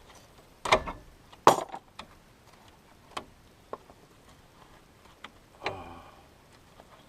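Metal hand tools clinking and knocking against metal steering parts: two sharp, loud clanks about a second in, then a scatter of lighter ticks and clinks.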